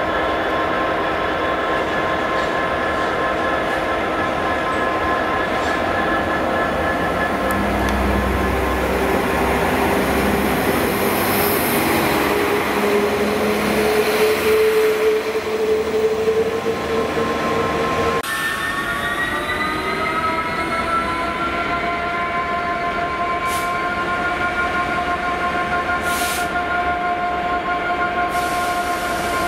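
Trains running at a station: a steady multi-tone drone of diesel and traction machinery from a Class 66 diesel freight locomotive and passenger multiple units. One whine rises slowly in pitch as a unit pulls away. About 18 seconds in the sound changes abruptly to another whine that keeps climbing.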